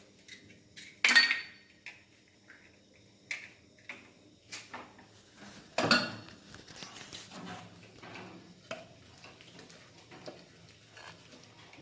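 Kitchen utensil clinking and knocking against a bowl while mixing cake batter: two sharp clinks, about a second in and near six seconds in, with lighter knocks in between and after.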